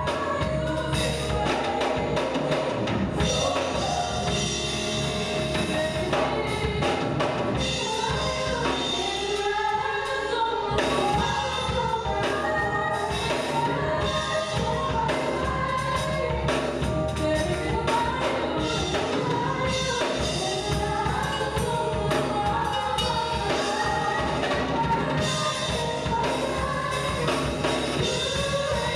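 Gospel worship team of women singing together into microphones over a musical accompaniment with drums, the voices and beat running steadily throughout.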